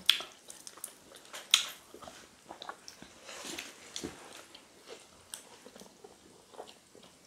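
Eating sounds from potato fufu with ogbono soup being eaten by hand: chewing and wet mouth smacks, with scattered sharp little clicks and a few louder snaps.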